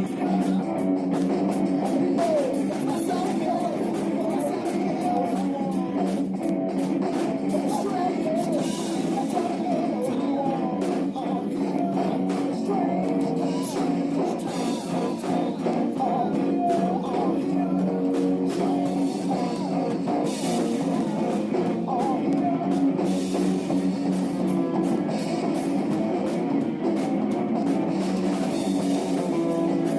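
Rock band playing live: electric guitar and drum kit at a steady beat, with a singer.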